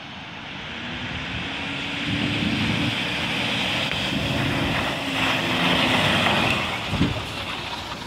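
Toyota Land Cruiser SUV's engine running under throttle as it drives through shallow river water, with the splash and hiss of spray from the wheels growing louder as it comes closer. A single short knock comes near the end.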